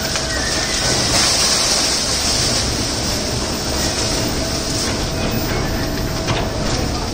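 Sonalika tractor engine running steadily while the hydraulic tipping trolley unloads sugarcane, the stalks sliding and rustling off the raised bed, with a few faint knocks.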